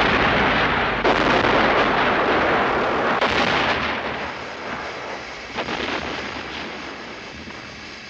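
Film-soundtrack explosions: a few heavy blasts, one about a second in and another about three seconds in, each trailing off in a long rumble, fading lower toward the end.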